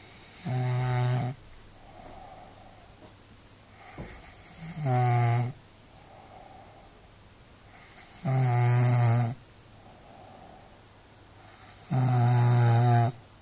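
A person snoring heavily in a slow, regular rhythm: four loud buzzing snores, each about a second long, coming roughly every three and a half seconds. A soft breath follows between each snore.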